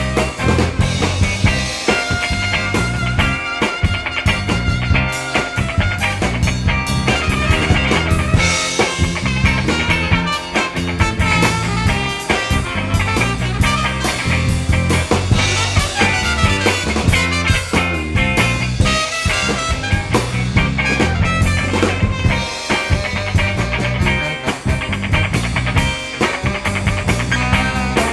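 Band playing an instrumental break in a New Orleans song: guitar over a steady bass line and drum kit.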